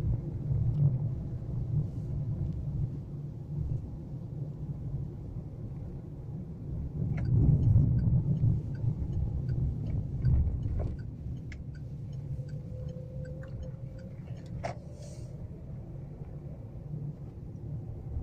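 Car interior noise while driving: a steady low rumble of engine and tyres on the road, heard inside the cabin, swelling about halfway through, with scattered light clicks and rattles in the second half.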